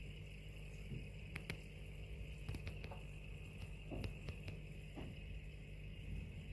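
Steady low hum and hiss of running aquarium equipment, with a scattered handful of faint short clicks and ticks.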